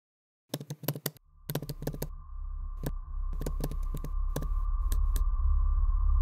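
Typing on a computer keyboard: irregular runs of key clicks that stop about five seconds in. Under them a steady low hum with a high thin tone comes in about a second in and grows louder.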